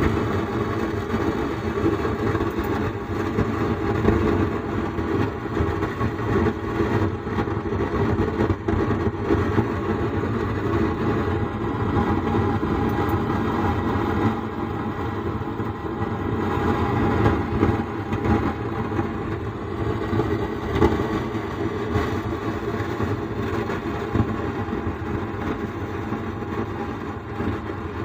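Speaker box driven by a Sound Standard CA20 amplifier giving out a steady crackling, rumbling noise with the volume turned down to zero. The fault behind it is a failed LM833 op-amp IC on the amplifier's back-panel board.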